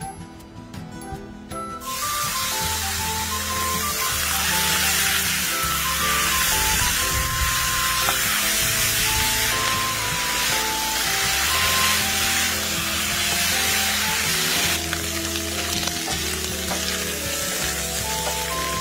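Cubes of pork belly sizzling as they fry in a pan, their fat rendering out. The sizzling starts about two seconds in and carries on steadily, over background music.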